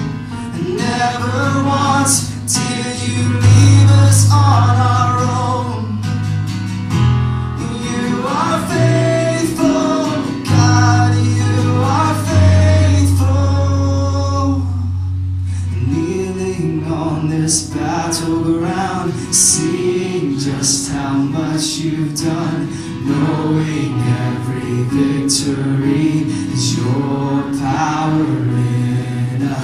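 Live worship music: voices singing a song together over a band with guitar and deep held bass notes, which drop out about halfway through.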